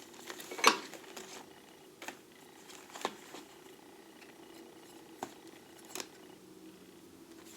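Small metal lathe tools and parts clinking and knocking as they are handled and put back in a toolbox drawer: a handful of separate knocks, the loudest about a second in, over a faint steady hum.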